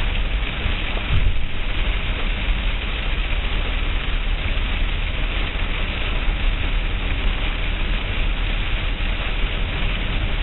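Steady rush of heavy rain with a vehicle's low rumble underneath.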